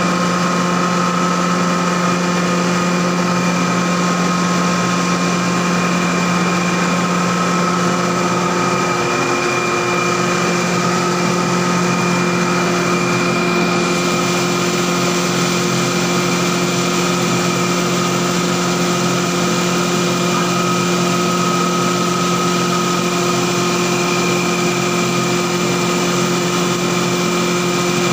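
Rice husk grinding machine running steadily, its belt-driven electric motor and grinding rotor making a loud, continuous drone with a few steady whining tones.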